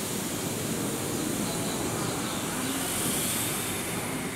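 Steady hiss and low rumble from a Keihan 7000 series electric commuter train standing at a station platform.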